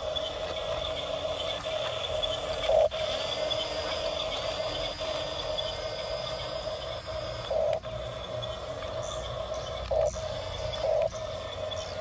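Toy RC bulldozer's small electric drive motors and gearbox whining steadily as it works gravel with its blade, with brief louder surges about three, seven and a half, ten and eleven seconds in.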